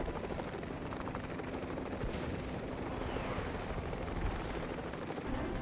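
Military helicopter hovering close by: dense rotor and turbine noise with a rapid chop from the blades over a steady low hum.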